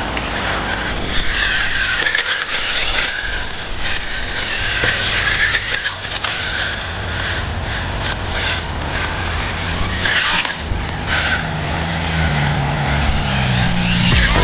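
Brushless 1/14-scale RC cars driving on a track, a high motor whine rising and falling with the throttle and tyres skidding and scraping on the surface.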